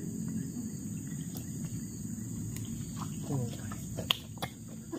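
Steady high-pitched drone of forest insects, with a few sharp clicks scattered through and a low rustling underneath.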